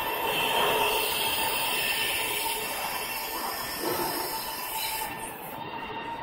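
Factory machinery running steadily: a continuous hiss with a faint steady whine under it.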